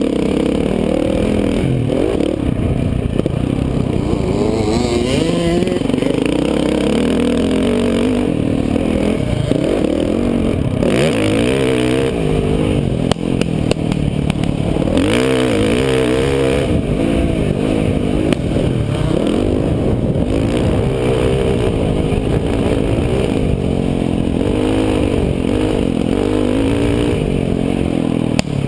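Dirt bike engine heard on board while riding a motocross track, its pitch rising and falling again and again as the throttle opens and closes.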